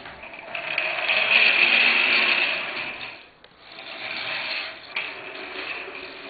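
Small plastic toy car rolling across a wooden floor on its plastic wheels as it is pulled along on a string, a rumbling rattle with a budgerigar riding on it. It stops for a moment after about three seconds, then rolls on more quietly.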